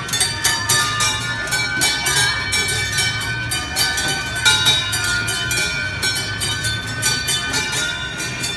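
Small bells on kiddie-ride cars rung over and over by several children: quick, overlapping metallic dings a few times a second, each leaving a ringing tone. A steady low hum runs underneath.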